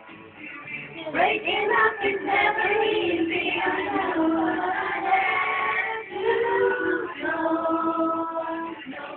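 A high voice singing a melody in long held notes, with short breaks about a second in and around six seconds in.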